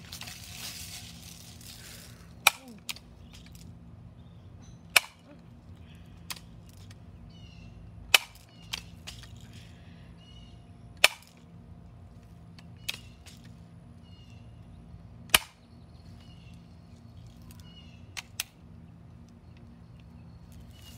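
Sharp clacks from a Crosman Legacy 1000 multi-pump air rifle being worked: five loud ones a few seconds apart, with fainter clicks between them and a quick double click near the end.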